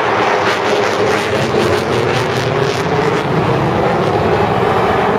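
Military jet flying low overhead, a loud engine rumble over a cheering stadium crowd.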